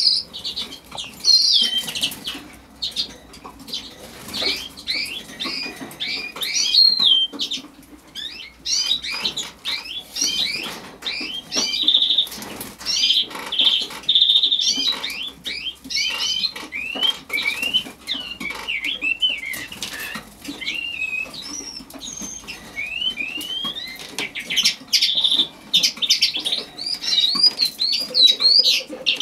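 Eurasian skylark singing: a long, near-continuous outpouring of rapid, high warbling and trilled notes, broken by brief pauses.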